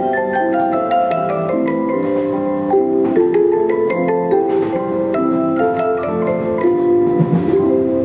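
Background music: a light melody and chords of struck notes that ring on, in the manner of mallet percussion such as vibraphone or marimba.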